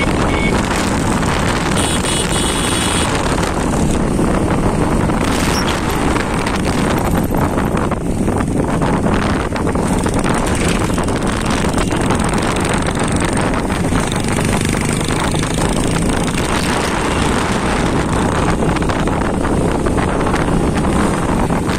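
Motorcycle riding along a road, its engine running steadily under a constant rush of wind on the microphone.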